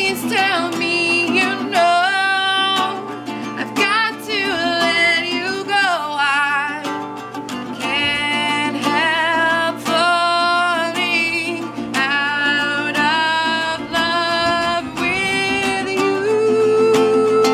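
A woman singing a song while strumming a ukulele, her sung phrases coming one after another with short breaks.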